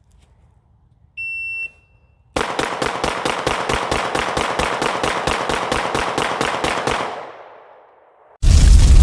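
A shot timer's single high beep, followed by a fast, evenly spaced string of pistol shots from a Kimber 2K11 Pro, about seven a second, whose echo dies away. Near the end a very loud, dense noise cuts in suddenly.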